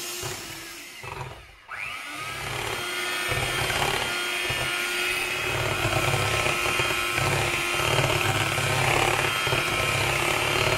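Electric hand mixer beating pancake batter in a bowl. The motor briefly cuts out about a second in, then spins back up with a rising whine and runs steadily, its beaters churning through the batter.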